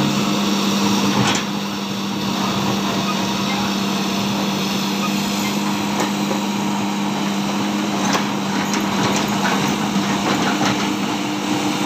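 Heavy diesel engine running steadily as a Hitachi hydraulic excavator loads rocks into a truck's steel cargo bed. Rocks knock against the bed about a second in and several times near the end.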